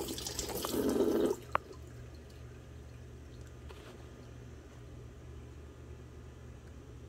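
Kitchen tap water running onto papaya pieces in a colander in the sink, stopping sharply a little over a second in. Right after, a short ringing clink, then only a low steady hum with a few faint light taps.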